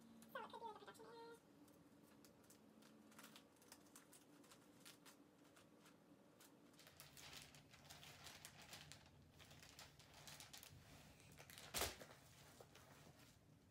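Near silence with faint scattered clicks and light rustling of hands handling gift-wrapping materials, and one sharper click about twelve seconds in.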